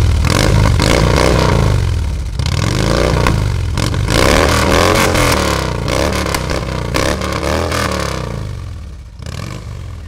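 Harley-Davidson Street Glide's Twin Cam 103 V-twin running through Rinehart 4-inch slip-on mufflers with DBX 4.0 baffles. It is revved up and down several times and settles back toward idle near the end.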